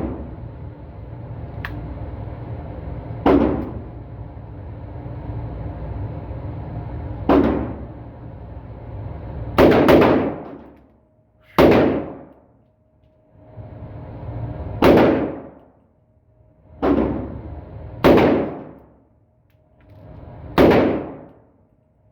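A newly built 300 Blackout rifle fired about ten times at an uneven pace, shots one to four seconds apart, each trailing off in a short echo. It runs through without a jam.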